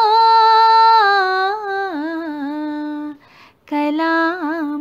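A woman's unaccompanied voice singing the end of a devotional kalam without words: a long held note that steps down twice in pitch, a short breath a little after three seconds in, then a closing phrase with quick melodic turns.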